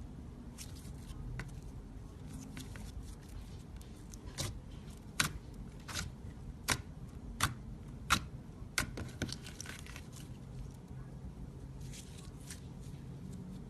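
Slime being squeezed and poked, with a run of seven sharp pops about three-quarters of a second apart starting about four seconds in, and fainter sticky clicks around them.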